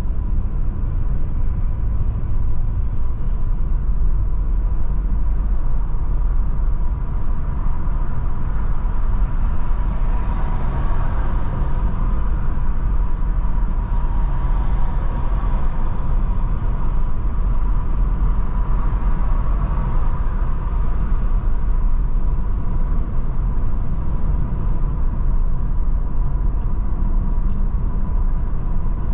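A car driving on a paved road, heard from inside the cabin: a steady low engine and road rumble with a faint steady whine above it. The tyre and road noise grows louder for a stretch in the middle, then eases.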